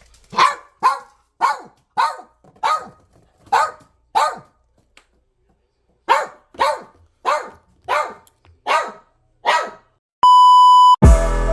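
A dog barking in two runs of about seven sharp barks each, roughly two a second, with a pause of a couple of seconds between. Near the end a steady electronic beep sounds for nearly a second, and music then starts.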